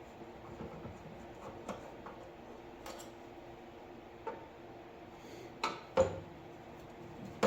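Scattered light clicks and knocks of metal parts being handled while a coffee warmer burner unit is taken apart, with one sharper knock about six seconds in, over a low steady hum.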